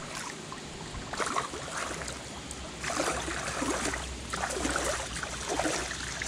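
Water sloshing and trickling against the hull of a small boat gliding across calm water, with gurgling splashes about once a second in the second half, over a low steady rumble.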